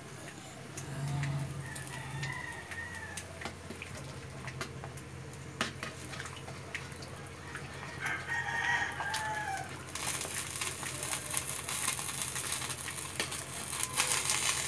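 A rooster crows twice, about a second in and again about eight seconds in. From about ten seconds in, a metal spatula stirs and scrapes through pork simmering in tomato sauce in a wok, with sizzling.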